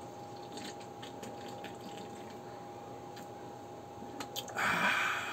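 A man drinking beer from a can, with quiet swallows and small clicks, then a breathy exhale about four and a half seconds in. A faint steady hum runs underneath.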